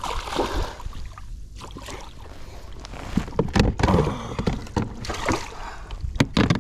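Irregular knocks, rattles and water splashes as a just-caught redfish thrashes and is brought aboard a small fishing boat, with the loudest cluster of knocks a little past halfway.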